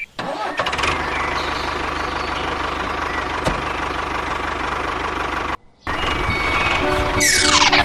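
A motor running steadily with a low hum, cut off briefly about two-thirds of the way through and then resuming. Near the end comes a falling swoosh.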